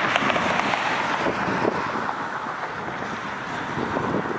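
Jet engine noise from a Boeing 737 on final approach, with gusty wind noise on the microphone; the noise eases slightly about two seconds in.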